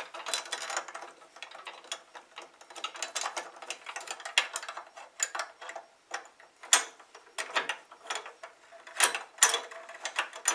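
A small screw being turned in with a hand tool: an irregular run of small metallic clicks and scraping, with a few sharper clicks near the end.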